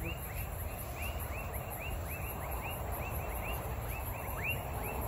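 Night chorus of tropical frogs and insects. Many short whistles each slide down in pitch and overlap several times a second, over a steady high pulsing insect trill and a low rumble.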